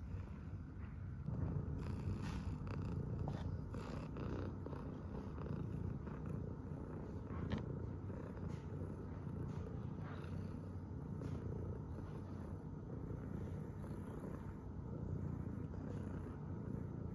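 Long-haired black-and-white tuxedo cat purring steadily while being stroked, recorded close up, with scattered soft rustles and ticks of hand on fur. The purring grows louder about a second in.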